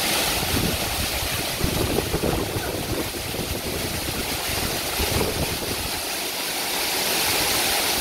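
Waterfall and its stream rushing steadily, a dense, even roar of falling and churning water with uneven surges in the low end.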